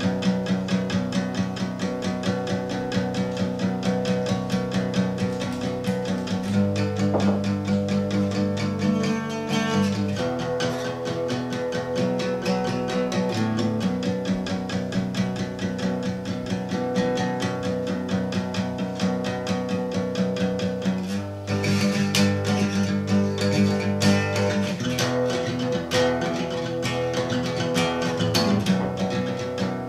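Solo acoustic guitar played with the fingers: a steady flow of picked notes over chords that change every few seconds, with a short break a little past two-thirds of the way through.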